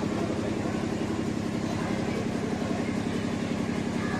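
A steady low engine hum that runs on without change.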